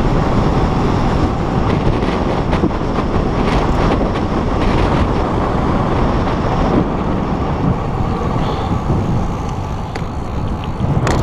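Wind rushing over a GoPro's microphone on a fast road-bike descent, with the hum of the tyres on asphalt: a loud, steady low rumble with a few light ticks.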